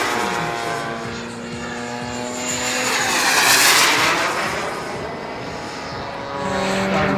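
Turbine engine of a large-scale model F9F Panther jet making fast passes: a rushing whine that swells and fades twice, loudest at the start and about three and a half seconds in. Near the end, a steady piston-engine drone comes in from the model Bearcat's petrol engine.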